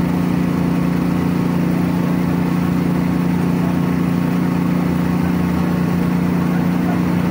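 Hydraulic power pack running at a steady hum, driving a hydraulic rerailing jack under a derailed railway wagon.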